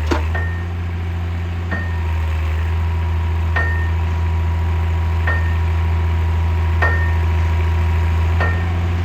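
Excavator's diesel engine running steadily at a low drum, with a sharp metallic click and a brief ring about every second and a half.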